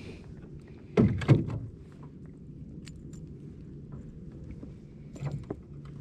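Two loud thumps against the hull of a small fishing boat about a second in, followed by scattered light knocks and ticks, over a steady low hum.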